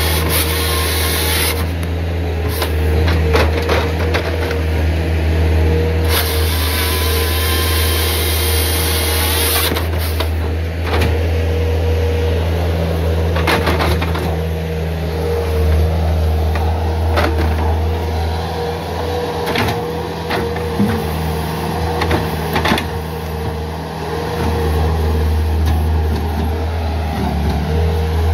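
Bobcat S300 skid steer's diesel engine running steadily under hydraulic load while its grapple handles firewood rounds. Several wooden knocks and clunks come as the rounds strike the pile, and a hiss-like rushing sound comes near the start and again for a few seconds mid-way.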